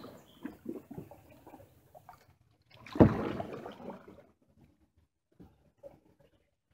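A wooden canoe paddle stroking through water, with small splashes and drips. About three seconds in comes a sharp knock and splash that trails off over about a second, then only a couple of faint ticks.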